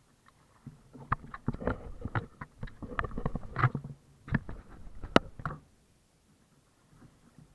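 Irregular knocks, clicks and rubbing aboard a sail kayak, running from about a second in to past five seconds and then dropping almost to nothing: handling noise of paddle, rigging and the boat-mounted camera.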